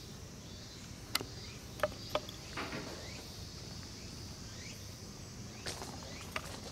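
Steady high-pitched insect chorus droning among the trees, with a few sharp clicks about a second and two seconds in and some faint short rising chirps.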